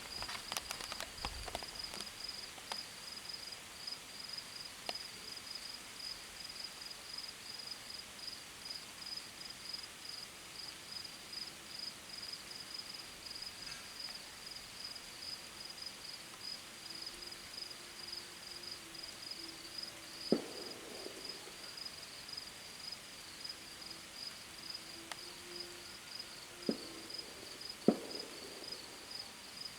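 Gunshots: three sharp reports with a trailing echo, one about two-thirds of the way in and two more close together near the end. Under them crickets chirp in a steady pulsing rhythm.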